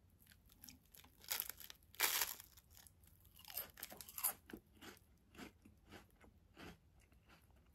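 A person biting into and chewing a crisp round biscuit close to the microphone: a string of separate crunches, the loudest about two seconds in, thinning out towards the end.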